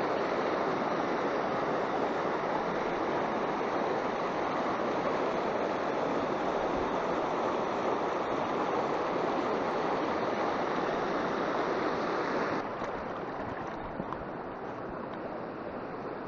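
Waterfall splashing into a rocky pool with the stream rushing over stones: a steady rush of water. About twelve seconds in it drops to a quieter flow.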